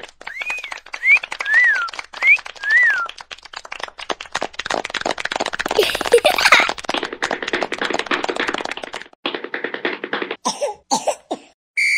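Busy cartoon sound effects: a dense run of rapid clicks with a few short chirpy whistle-like glides that rise and fall in the first few seconds, thickening into a denser noisy stretch midway, then breaking into short bursts near the end.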